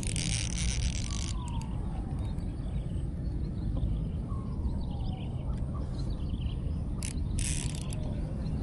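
Strong wind buffeting the microphone in a steady low rumble. Through it a short falling whistle comes back every few seconds, with faint bird chirps and two brief hissing bursts, one at the start and one near the end.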